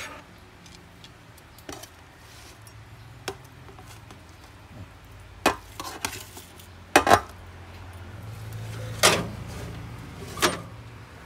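Metal utensils and a stainless steel roasting pan clinking and clanking at scattered moments, the loudest knocks in the second half, over a low steady hum.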